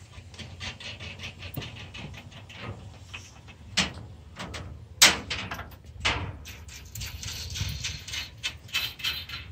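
Irregular metallic clicks, clinks and knocks of bolt hardware being handled and fitted by hand to a steel trailer frame, as washers and flange nuts go onto the bolts. One sharp knock about five seconds in is the loudest sound.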